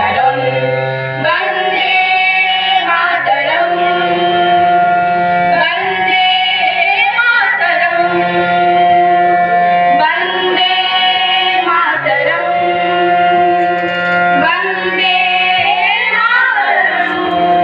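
Music: a woman singing long held, sliding notes over instrumental accompaniment.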